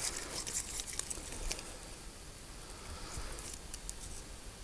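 Small fire of kindling crackling faintly with scattered sharp ticks and pops, thicker in the first couple of seconds, as a freshly lit cotton-wool fire starter catches.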